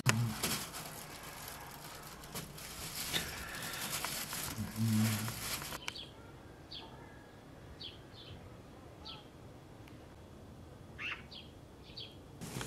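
Rustling and light knocks of thin wooden kindling sticks being handled and pushed into a metal stove's firebox, with a brief low voice sound about five seconds in. From about six seconds in, the noise drops away and small birds chirp in short, separate calls, about eight of them.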